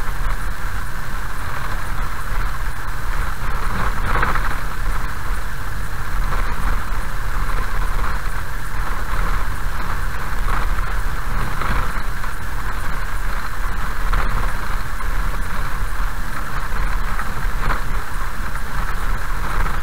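Car driving slowly on a gravel road, heard from inside the cabin: a steady hiss of tyres on gravel over a low engine and road rumble, with occasional small ticks.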